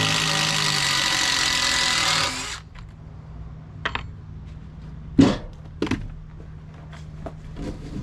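Cordless drill running steadily in the wood for about two and a half seconds with a steady whine, then stopping; a few wooden knocks follow as the tool and timber are handled, the loudest about five seconds in.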